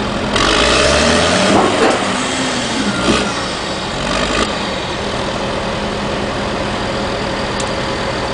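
Caterpillar D6R bulldozer's diesel engine running. It is louder and rougher for the first few seconds, with a falling pitch, then settles into a steady idle about halfway through.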